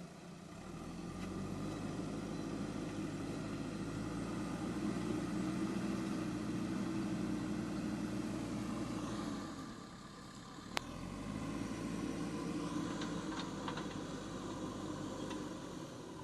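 JCB 3DX backhoe loader's diesel engine working under load. It eases off briefly about ten seconds in, with one sharp click, then picks up again with a few light clanks.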